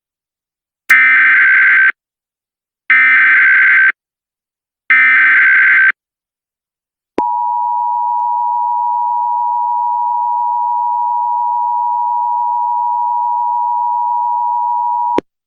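Emergency Alert System tones: three one-second bursts of SAME header data a second apart, then the steady two-tone EAS attention signal held for about eight seconds before it cuts off sharply.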